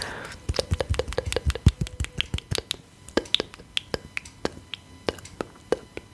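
Fingertips patting serum into skin: quick, sticky tapping clicks, several a second and uneven, with soft low thumps over the first couple of seconds.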